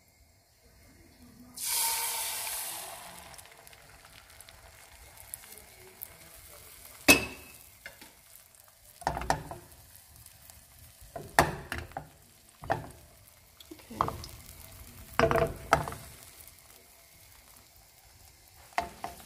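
Beaten egg poured into hot oil in a nonstick frying pan: a sudden loud sizzle about two seconds in that fades to a soft, steady sizzle as the omelette sets. Several sharp knocks and taps come at irregular moments, the loudest about seven seconds in.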